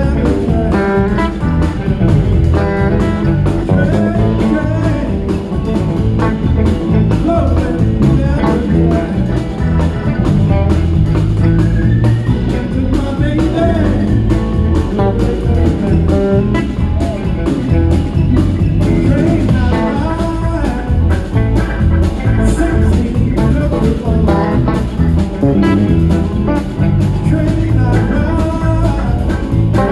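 Live electric band playing: electric guitar lead lines over bass guitar and a drum kit, with no vocal line clear enough to be picked up as words, heard as an audience recording.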